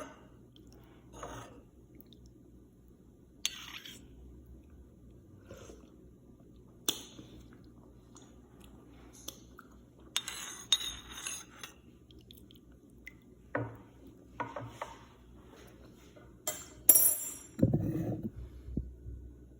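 Glassware and cutlery being handled: scattered clinks and knocks, a run of clattering about ten seconds in, and a louder clatter with a low thump near the end.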